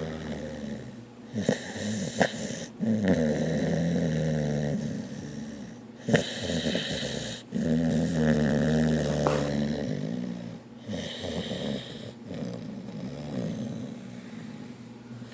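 Snoring in sleep: a run of about five long, drawn-out snores, each one to two and a half seconds, some with a breathy whistle on top, growing fainter near the end.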